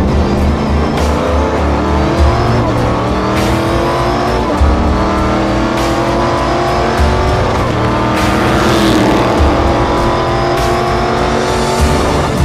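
Stock Car race car's V8 engine accelerating hard, its pitch climbing in long rising sweeps and falling back at upshifts a couple of times, with background music underneath.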